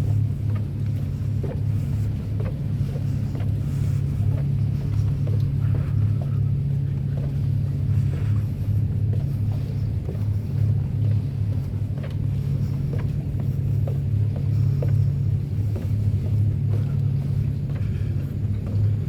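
A low, steady engine drone, pulsing regularly, like a motor running at a constant speed.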